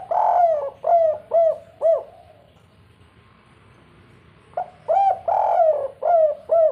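Spotted dove cooing. A phrase with a long drawn note ends in three short clipped 'kuk' notes, the 'kuk 3' style. After a pause of about two and a half seconds a second phrase begins and carries on into its own closing notes.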